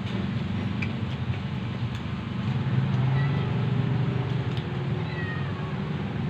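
A cat meowing several times in the second half, thin falling calls over a steady low background hum.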